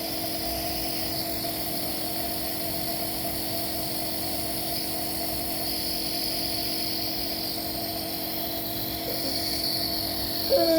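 Nebulizer compressor running with a steady mechanical hum. Near the end a short voice sound breaks in.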